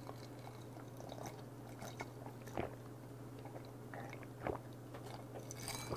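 Faint swallowing and mouth sounds of a man gulping a highball from a glass with ice, a few soft gulps spread through, over a steady low hum.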